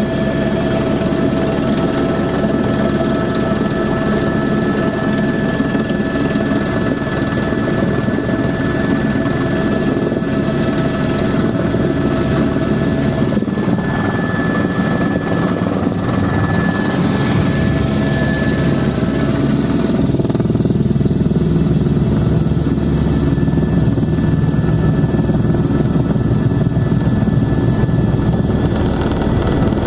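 Helicopter in flight: steady turbine whine over the dense rotor and engine noise. It grows a little louder about twenty seconds in.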